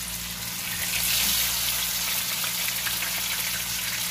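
Marinated fish steaks sizzling in shallow oil in a non-stick kadai: a steady frying hiss with fine crackles.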